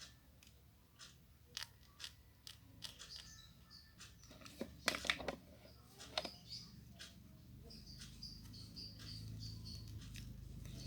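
Hands handling craft materials on a work surface: scattered small clicks, taps and rustles, with a cluster of sharper clicks about five seconds in. A low hum builds over the last few seconds.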